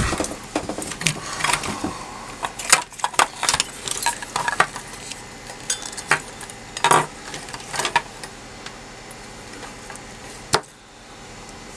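Irregular clicks, knocks and light clatter of an opened battery charger being handled and turned over: its circuit board, metal heatsink plates, plastic case and wires knocking together. The clatter is busiest for the first several seconds, then there is one sharp click near the end.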